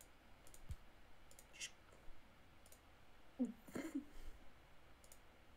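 A few faint clicks in a quiet room, with a short low vocal sound about three and a half seconds in.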